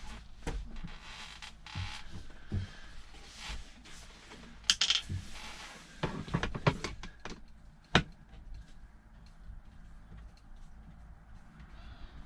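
Clinks, knocks and rattles of hand tools and small metal parts being handled while fittings are unscrewed and taken off. There is a cluster of sharp clinks about five seconds in, a run of knocks a second later, and one sharp click near eight seconds.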